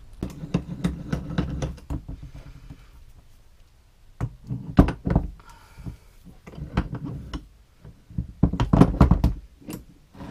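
Repeated metal knocks and clunks as a Land Rover TD5 starter motor is handled and set down on a workbench, coming in three bouts: in the first two seconds, about four to five seconds in, and near the end.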